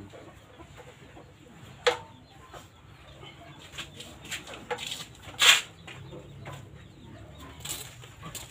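Chickens clucking, over a low steady background. A few short sharp clicks and knocks come through, the loudest about two seconds in and about five and a half seconds in.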